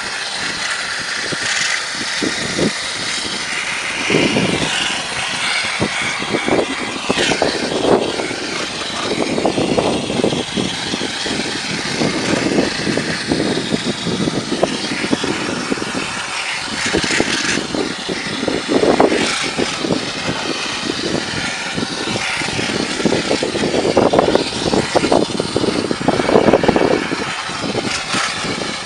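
Cleaning machinery working on a greasy ventilation fan: a steady machine noise with a hiss, surging louder every few seconds.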